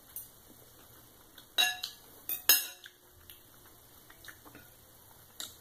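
Metal knife and fork clinking and scraping against a ceramic plate while cutting food: a handful of sharp, separate clinks with short ringing, the loudest about two and a half seconds in.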